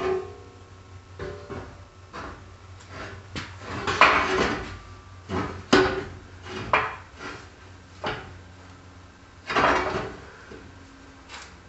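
A heavy hammer striking steel, about a dozen irregularly spaced blows, several of them ringing with a metallic clang.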